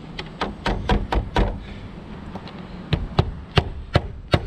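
A hammer driving standard roofing nails through the plastic flange of a solar roof vent into the roof: a quick run of about six taps in the first second and a half, then a pause, then five sharper blows about a third of a second apart.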